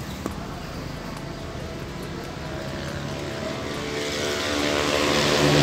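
An engine running steadily, growing louder from about three seconds in.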